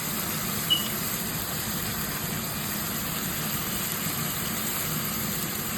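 Steady sizzle of vegetables frying in a pan, with a low hum underneath and one brief clink about a second in.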